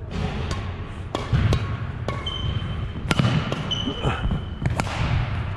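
Badminton rally: several sharp pops of rackets striking the shuttlecock, with short shoe squeaks and footfall thuds on the wooden court floor.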